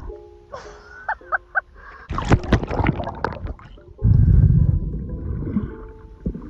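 Water sounds on a camera held by a snorkeler: a few short bubbling gurgles about a second in, a burst of splashing about two seconds in, then a heavy low rush of water over the microphone from about four seconds.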